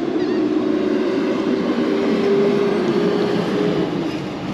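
Steady drone of a motor with a humming tone that creeps slightly higher, then drops away near the end.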